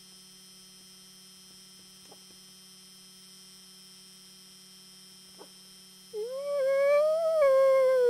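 A person's imitation wolf howl begins about six seconds in after a quiet stretch: one loud, drawn-out howl that rises, wavers, then eases slightly lower and holds steady.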